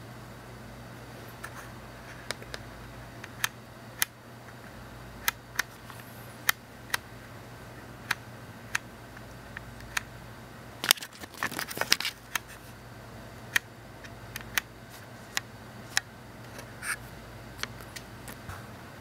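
Camera handling noise picked up by the camera's own microphone: irregular sharp clicks, roughly one a second, with a brief burst of clicking and rattling about eleven seconds in, over a steady low hum.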